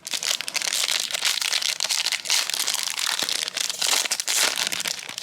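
Crinkling of a Panini Prizm trading card pack's foil wrapper being handled and opened: a dense, loud, crackly rustle that stops abruptly near the end.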